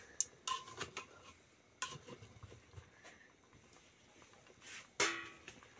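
Steel tongs clinking and knocking against a steel cooking pot while boiled potatoes are lifted out of it. There are a few sharp metallic clicks with short ringing; the loudest knock comes about five seconds in.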